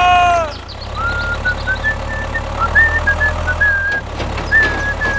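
Steady low hum of a small model motor running, with a high wavering whistle-like tune that steps between notes over it and a few light clicks.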